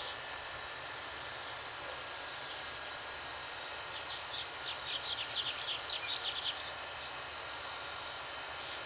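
Steady outdoor background noise with a few faint, steady high tones. About four seconds in, a run of quick high chirps, around five a second, lasts some two and a half seconds.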